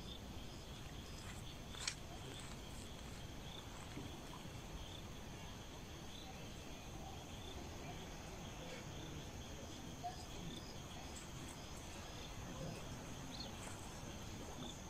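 Faint outdoor ambience of insects chirping in steady high repeated pulses, with a sharp click about two seconds in.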